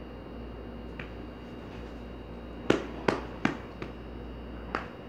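A quick run of five short, sharp clicks or knocks, starting about halfway through, over a steady low background hum.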